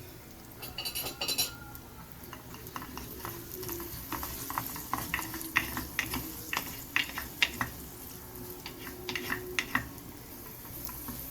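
Chopped onion and jalapeño frying in hot oil in a Korean bowl, sizzling faintly, while a spoon stirs them with many short scrapes and taps against the bowl.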